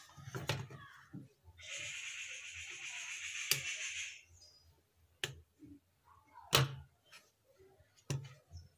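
A steady hiss lasting about two and a half seconds, then several sharp knocks and clicks as a monitor power-supply circuit board is handled and set down on a wooden workbench. The loudest knock comes about two-thirds of the way through.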